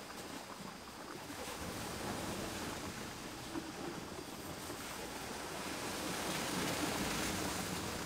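Surf washing on a beach: a steady rush of waves that swells louder near the end, with some wind.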